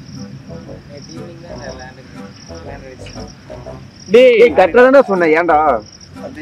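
Faint steady chirping of crickets, then about four seconds in, loud bursts of laughter with a wavering, shaking pitch lasting under two seconds.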